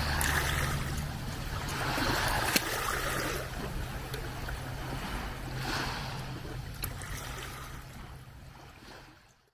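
Sea water washing in gentle swells that rise and ebb every couple of seconds, over a low steady hum, the whole fading out to silence near the end.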